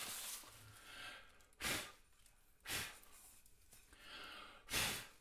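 A man breathing out in breathy sighs: three short puffs of breath, the last one longest, with softer breaths between.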